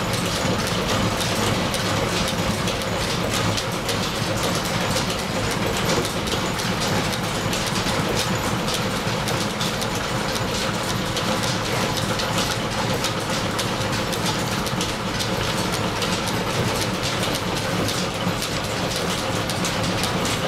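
Belt-driven milling machine cutting gear teeth, run from overhead line shafting, pulleys and flat belts, with a steady mechanical clatter of fine, rapid ticks.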